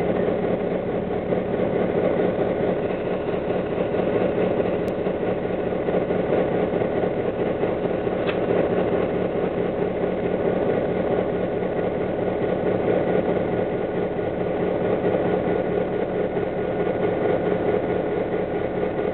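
EMD F7 diesel locomotive's 16-cylinder 567 two-stroke engine idling steadily with the locomotive standing still, heard from inside the cab.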